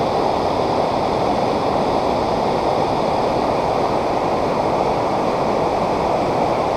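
River in flood, a torrent of fast brown floodwater rushing steadily below, with a constant full-bodied rush and no let-up.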